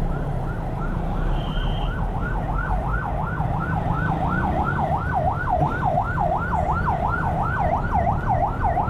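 Ambulance siren in fast yelp mode, its pitch sweeping up and down about three times a second. It grows louder over the first couple of seconds and then holds steady over the low rumble of a motor scooter and road noise.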